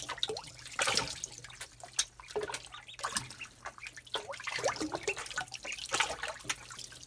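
Water splashing and dripping in a small tub as ducklings dive and paddle, in quick irregular plops and drips, over a faint steady low hum.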